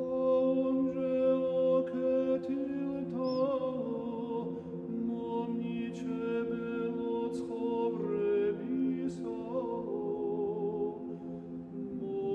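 Background music: a cappella choral chant, several voices holding long notes over a steady low drone.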